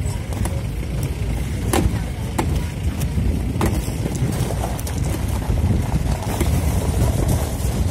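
A vehicle driving along a rough dirt track: a steady low rumble, with a few sharp knocks and rattles from bumps between about two and four seconds in.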